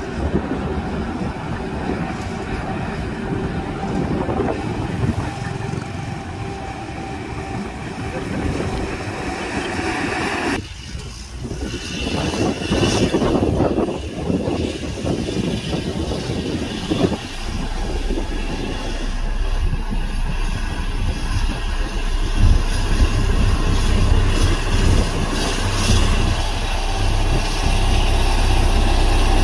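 Motor grader's diesel engine running while its blade scrapes and pushes loose gravel, a continuous grinding rumble. Over the second half a low engine drone grows stronger and the whole sound gets louder.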